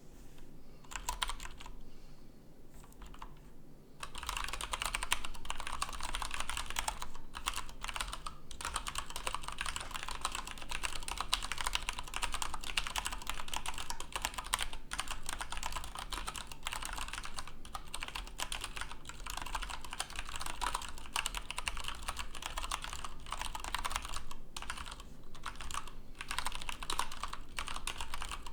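Fast typing on a split computer keyboard, about 98 words a minute: a dense, continuous clatter of keystrokes. A few separate key presses at first, then steady rapid typing from about four seconds in.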